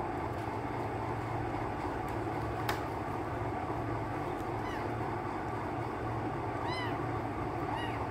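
Female orange tabby cat giving short meows, each rising and falling in pitch: a faint one about halfway, a clearer one near seven seconds and another near the end. A steady low hum runs underneath, and there is one sharp click about a third of the way in.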